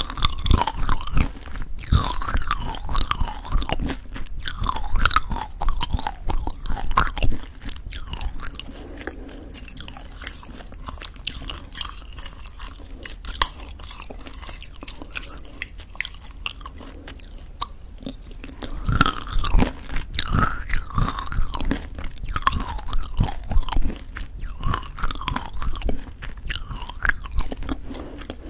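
Close-miked chewing of thick yogurt with crunchy homemade granola: crisp crackling crunches with wet mouth sounds, in two busy stretches with a quieter spell of softer chewing in the middle.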